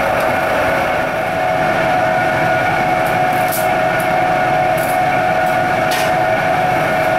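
Steady loud drone of a commercial kitchen's ventilation hood running over a gas range, a constant hum with a few short clatters in the middle.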